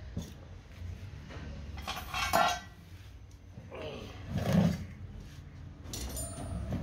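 Sheet-steel motorcycle fuel tank being shifted and set down in an old tyre, its thin metal clanking twice, about two seconds apart.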